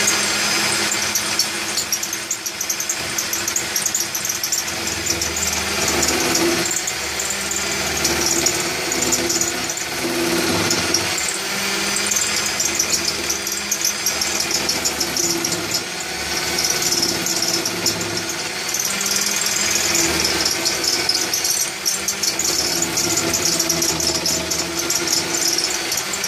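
Corded electric drill running steadily as the motor of a homemade wood lathe, with a hand chisel held against the spinning wooden workpiece, giving a rough cutting rasp over the motor's whine.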